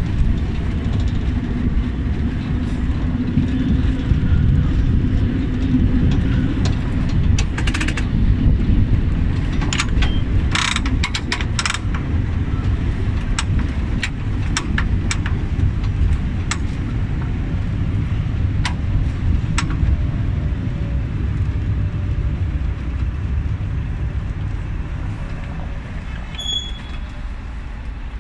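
Heritage tram running on its rails: a steady low rumble, with a scatter of sharp clicks and knocks from wheels and track. It grows a little quieter near the end.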